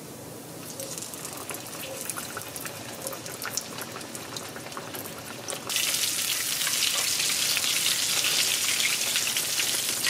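Flour-dredged fish fillet frying in hot oil on medium-high heat: a crackling sizzle with scattered pops that turns suddenly louder and denser about halfway through.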